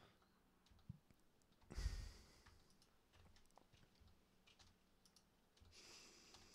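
Near silence with faint, scattered computer clicks, and a breath out into the microphone about two seconds in, with a softer one near the end.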